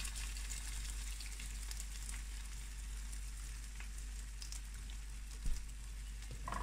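Beaten egg poured over potatoes, sucuk and vegetables sizzling steadily in oil in a frying pan on low heat, with faint scattered crackles. A single soft knock comes about five and a half seconds in.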